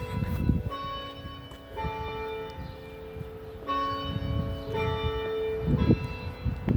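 Church bells ringing: a different bell strikes about once a second, each note ringing on under the next. A low rumble runs underneath.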